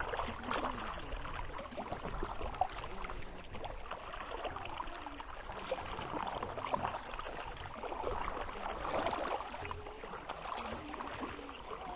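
Water lapping and splashing around a canoe on a river, with scattered light knocks and clicks.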